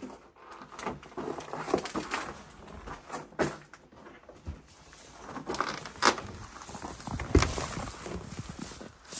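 Irregular knocks, bumps and scuffs of people moving about and handling things, with a sharp thump about seven seconds in.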